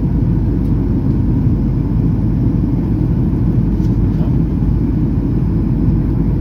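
Steady low rumble inside the cabin of a Boeing 737-800 in flight, heard from a window seat by the wing: its CFM56-7B turbofan engines and the rush of air over the fuselage.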